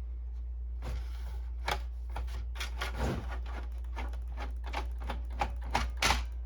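Opened-up Canon Pixma inkjet printer's paper-feed mechanism running, its gears and rollers making irregular clicks and rattles over a steady low hum. The feed reverses direction to pull the paper through, and the printer has stopped feeding paper.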